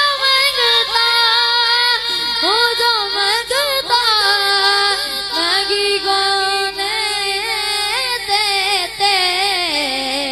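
A boy singing solo into a microphone, unaccompanied, in a wavering, ornamented melody; the line slides down near the end.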